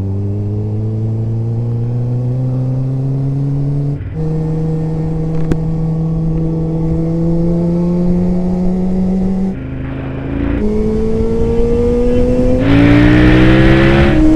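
Sport motorcycle engine heard from the rider's seat, pulling in gear with its pitch climbing steadily, in spliced riding clips that break off abruptly several times. Near the end the revs climb again under a louder rush of wind.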